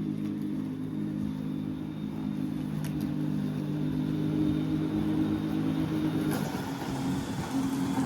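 Petrol lawn mower engine running at a steady pitch; the hum wavers and breaks up for about a second around six seconds in, then settles again.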